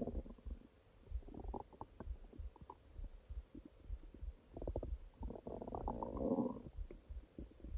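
Human stomach growling: irregular low gurgles and pops, with a longer, louder rumbling gurgle in the second half.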